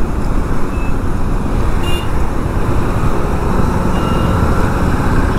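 Royal Enfield motorcycle riding along a road: steady engine and wind rush on the action camera's microphone, with faint brief high tones about two and four seconds in.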